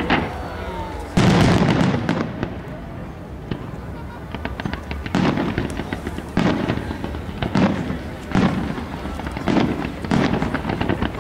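Aerial firework shells bursting one after another, the loudest about a second in and a quick series of bursts in the second half, with rapid sharp crackles between them.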